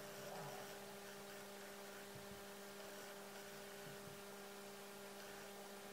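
Faint steady electrical hum in two low tones, with a light hiss: near-silent room tone.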